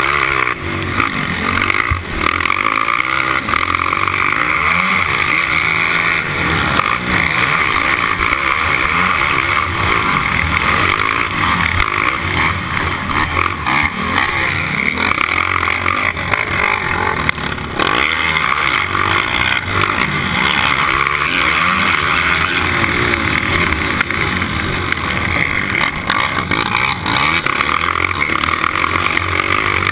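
Four-stroke race quad's engine at full race pace, heard close up from the onboard mount, revving up and down again and again with the throttle and gear changes.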